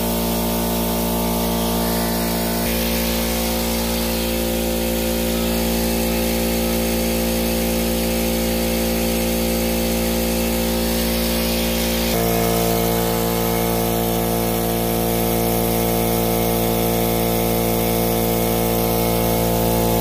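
King Canada Flex Air 20-gallon oil-lubricated air compressor running continuously on its break-in run, its motor and pump hum mixed with air hissing out of the open tank valve and drain, so it pumps without building pressure. Its tone shifts slightly about 3 s in and again about 12 s in.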